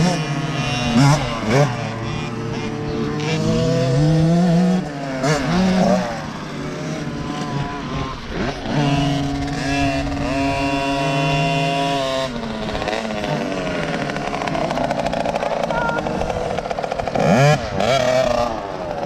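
Youth motocross bike engines revving, the pitch rising and falling again and again as the riders accelerate and shift, with several engines overlapping.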